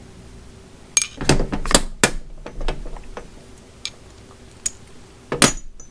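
Hard clicks and knocks of ratcheting screwdriver parts and packaging being handled: a quick run of about five between one and two seconds in, a couple of faint taps, then a louder knock near the end.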